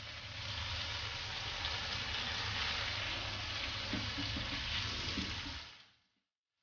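Steady sizzling in a frying pan as raw chicken pieces go into hot, nearly dry tomato-onion masala. It stops about a second before the end.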